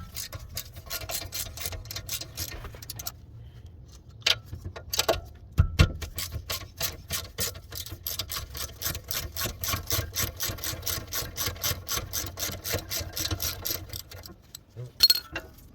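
3/8-inch ratchet with a 7 mm Allen-key bit clicking in quick, even runs of about four clicks a second as a bolt on the rear brake caliper is undone, with a few louder metal knocks in a pause partway through.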